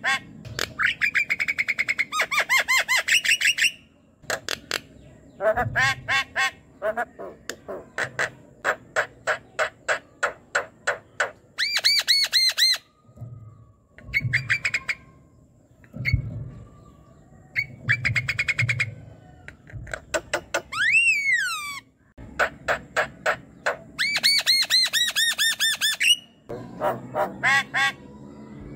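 Javan myna singing a busy, chattering song: quick runs of clicks and rattles, harsh squawking calls, and one clear rising-and-falling whistle about three-quarters of the way through.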